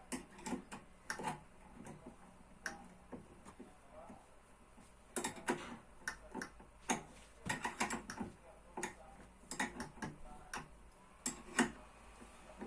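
Irregular clicks and light knocks of small hard parts being handled, from work on skateboard wheels and bearings. They come unevenly, sometimes in quick clusters and sometimes a second or more apart.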